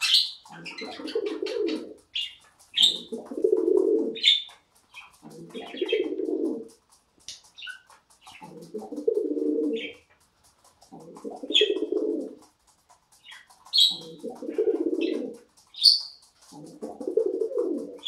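Domestic pigeon cooing over and over: seven low, drawn-out coos of about a second and a half each, one every two to three seconds. A budgerigar chirps briefly between the coos.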